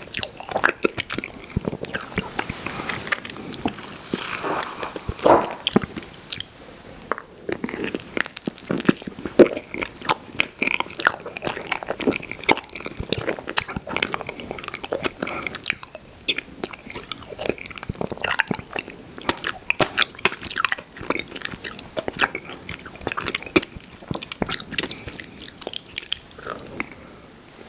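Close-miked eating mouth sounds: chewing a spoonful of ice cream, with dense, irregular wet smacks and clicks.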